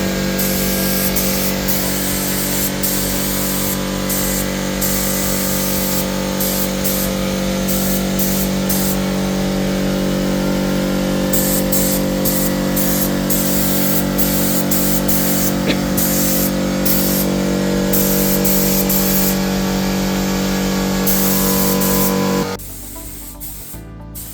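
Paint spray gun spraying, its high air hiss coming and going in bursts over a steady low hum; everything cuts off a couple of seconds before the end.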